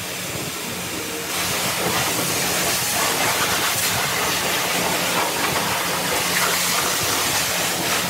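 High-pressure car-wash wand blasting water against a muddy pickup's body and wheel: a steady hiss over a low hum, getting louder about a second in.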